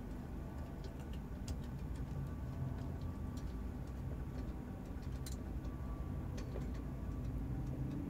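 Light, irregular clicks and taps from hands handling the metal camera bracket and tilt arm of a DIY pan-and-tilt head, over a steady low hum.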